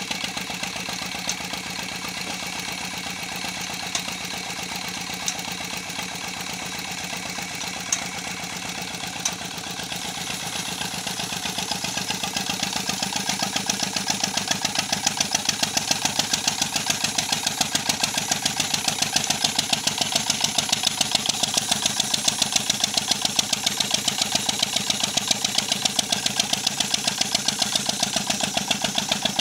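Ruston Hornsby-type 'Peter' stationary diesel engine running with a fast, even chugging beat. A few sharp clicks come in the first ten seconds, and from about ten seconds in the beats grow louder, then hold steady.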